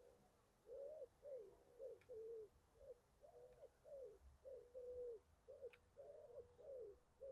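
A pigeon cooing faintly: a run of short, low coo notes, about two a second, starting about a second in.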